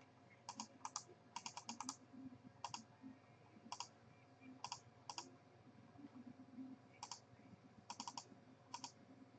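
Faint computer keyboard typing: scattered clusters of quick, sharp key clicks with short pauses between them.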